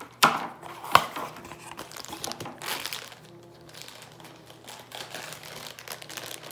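Clear plastic wrapping crinkling as it is handled and a wristwatch is pulled out of it, with two sharp snaps in the first second.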